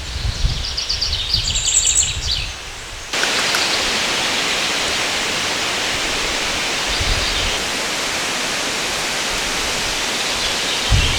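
Birds chirping in short high calls over a low rumble, then, after a sudden cut about three seconds in, the steady rush of a river.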